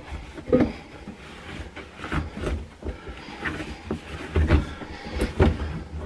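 A microfiber cloth scrubbing and rubbing under the rubber door gasket of a front-load washing machine, with irregular soft knocks and thumps as hands work against the gasket and drum rim. The loudest thumps come near the end.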